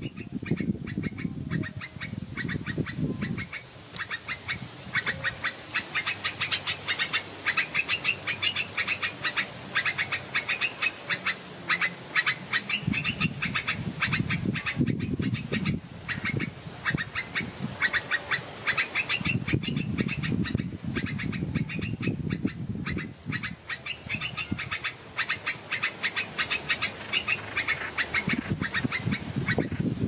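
Birds calling: long runs of rapid, high-pitched chattering notes, with stretches of lower, rapidly pulsed calls in between.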